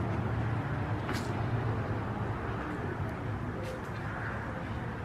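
Steady low outdoor rumble with an even hiss over it and a few faint, short high clicks.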